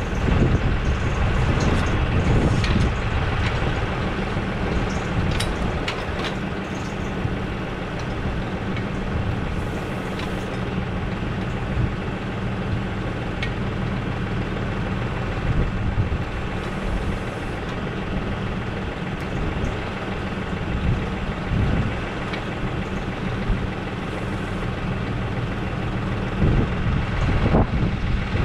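A 2020 Case IH tractor's diesel engine running steadily while its three-point hitch hydraulics are worked, with a few sharp clicks in the first several seconds and a rise in level near the end.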